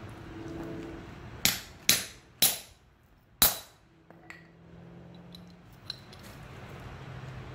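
Hammer striking the steel plunger of a hammer-type lug crimper four times, crimping a copper lug onto a heavy battery cable: three sharp metal-on-metal blows about half a second apart, then a fourth after a one-second pause. A few light clicks follow near the end as the crimped lug is handled.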